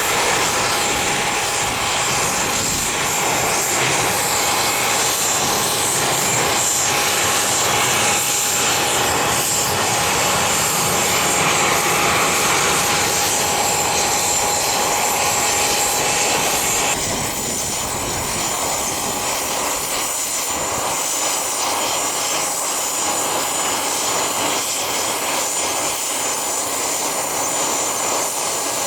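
Cessna CitationJet CJ1's twin turbofan engines running: a steady jet whine with a high whistle. About 17 seconds in the sound shifts, becoming a little quieter with less rumble.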